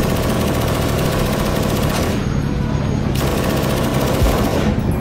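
Two long bursts of rapid automatic machine-gun fire, the first about two seconds long and the second about a second and a half, over a steady low rumble.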